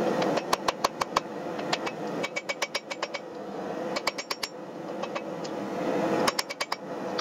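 Blacksmith's hand hammer striking a red-hot forged axe head on a steel anvil, in quick runs of ringing blows with short pauses between them.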